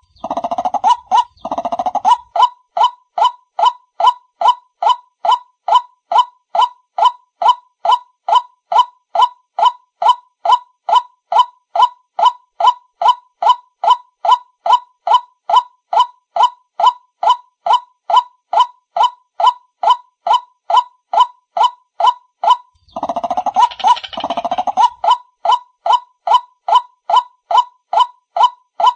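White-breasted waterhen calling: a steady, evenly spaced series of short pitched notes, about two and a half a second. Twice the calling breaks into a louder, rougher burst: once right at the start and again about four-fifths of the way through.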